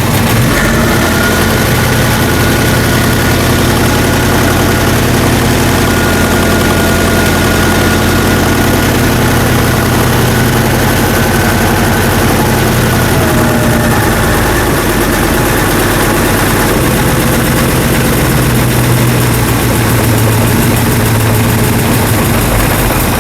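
1970 Mustang engine idling steadily with the hood up, its speed drifting slightly while the base timing is being set. The engine stops abruptly right at the end.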